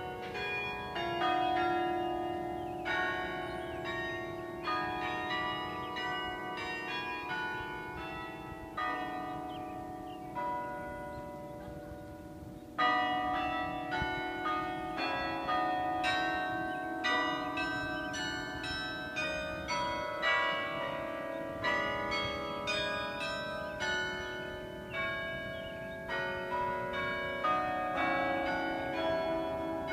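Carillon tower bells played as a tune, struck notes ringing and overlapping one another. About ten seconds in the playing thins and the notes ring away, then a loud note about thirteen seconds in starts a fuller passage.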